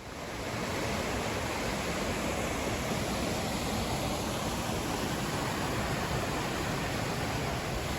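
Water from small cascades along a mountain stream, a steady rush with no let-up, which comes up within the first second.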